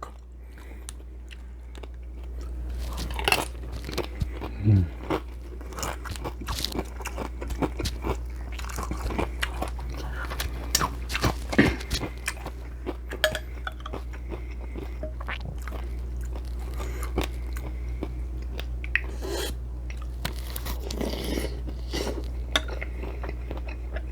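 Close-miked chewing of Mexican shrimp cocktail: repeated wet mouth smacks and crunching bites. A steady low hum runs underneath.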